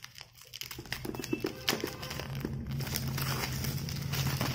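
Clear plastic shrink-wrap being peeled and pulled off a new phone box, crinkling with many small crackles and snaps as the factory seal comes away. A steady low hum runs underneath.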